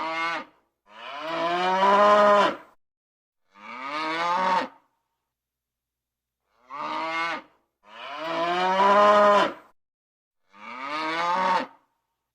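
A cow mooing in separate calls: a short moo, a long, louder moo and a medium one, then the same three calls again in the same order, with silence between each.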